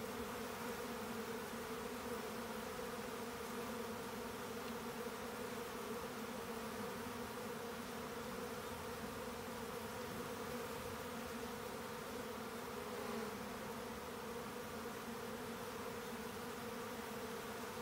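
Japanese honeybees buzzing in flight around their wooden box hive: a steady, even drone of wings.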